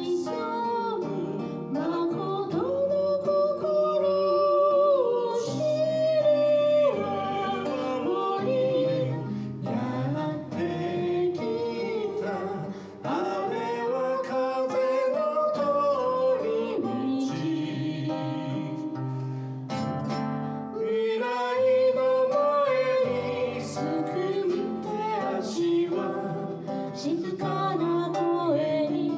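A man sings a Japanese song with long held notes, accompanying himself on a strummed acoustic guitar.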